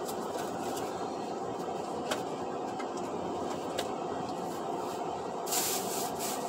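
Steady engine and road noise heard inside a truck cab crawling in a traffic jam, with a few light clicks and a short burst of hiss about five and a half seconds in.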